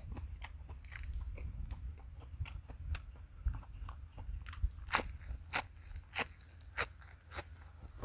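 Close-up chewing and biting of a lettuce-wrapped mouthful of cooked beef larb, the fresh lettuce crunching crisply, with a run of sharp crunches about every half second from about five seconds in. A steady low wind rumble on the microphone lies under it.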